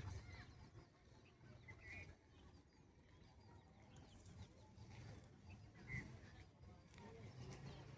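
Faint, scattered short bird calls, with brief chirps about two and six seconds in, over a low background rumble.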